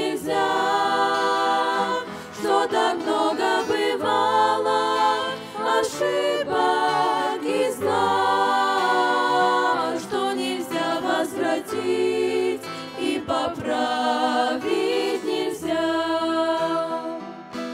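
Girls' vocal group singing a slow Christian song in close harmony, a passage with no clear words between the verses.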